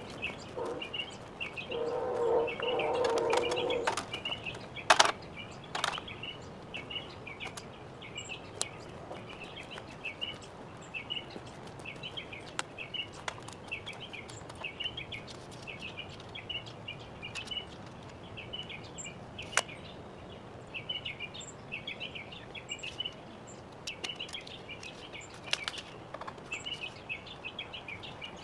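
A songbird repeating a short, high chirping phrase about once a second. It is joined by a few sharp wooden knocks from lumber and a ladder being handled, the loudest about five and six seconds in, and by a lower pitched sound in the first few seconds.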